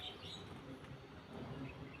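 Small birds chirping over a steady outdoor background hiss. One chirp comes right at the start and fainter ones come near the end.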